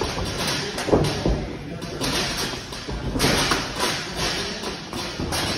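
Thuds and scuffs of kickboxing sparring: strikes landing on gloves and shin guards and bare feet shuffling on the ring mat, with the loudest thud about a second in.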